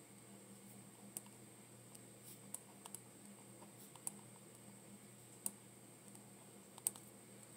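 About six scattered, light clicks of computer keys pressed one at a time, irregularly spaced, over a faint steady room hum.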